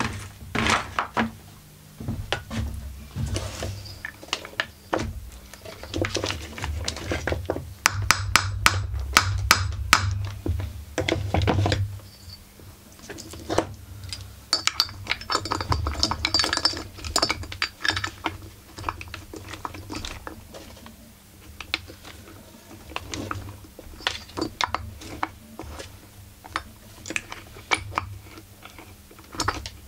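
Metal tools and chainsaw parts being handled, making repeated clicks and knocks, with a quick run of sharp clicks partway through. Under them a heat gun blows steadily and cuts off about twelve seconds in.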